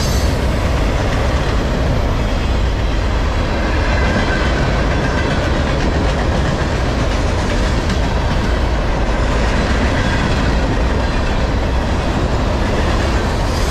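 Freight train rolling past close by: a steady, loud rumble and rattle of steel wheels on rail and of the passing freight cars.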